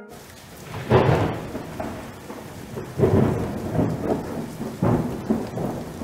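Thunderstorm: steady rain hiss with three rolls of thunder, about one, three and five seconds in, cutting off abruptly at the end.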